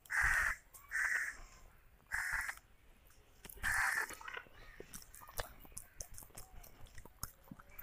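A crow cawing four times, about once a second, followed by soft clicks and smacks of rice and chicken curry being mixed by hand and chewed close to a clip-on microphone.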